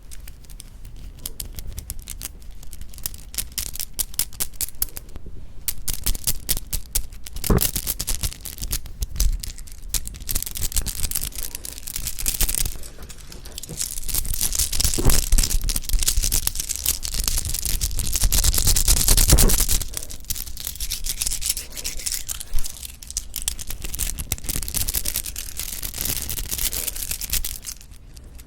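Close-miked crackling and rustling of plastic packaging being handled and torn open around soft rice cakes, with dense crackles throughout and louder, sustained crinkling in the middle stretch.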